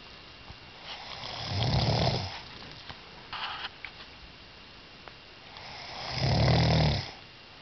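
Snoring: two long, low snores about four and a half seconds apart, each building up and then stopping, with a short, quieter breathy sound between them.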